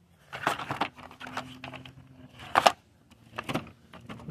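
Rummaging through a box of car parts: irregular knocks, clicks and rattles as parts and boxes are shifted, with the loudest knock about two and a half seconds in.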